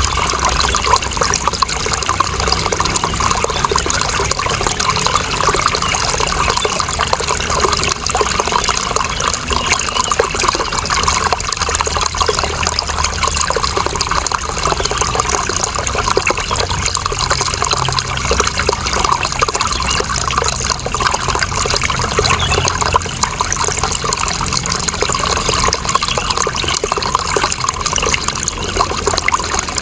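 Running water trickling and splashing steadily, a continuous even flow with no breaks.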